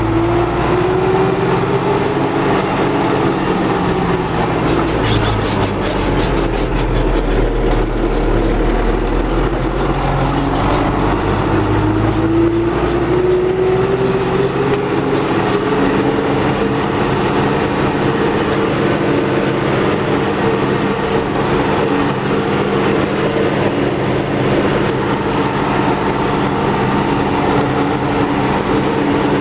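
MTZ tractor driving, its diesel engine and drivetrain running steadily; the engine note rises in pitch about halfway through. No hum from the freshly repaired axle and gearbox: the repair is sound.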